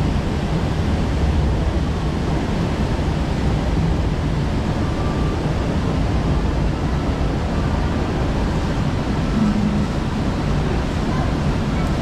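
Steady rush of water around a river rapids raft moving along its channel, mixed with a low rumble of wind on the microphone.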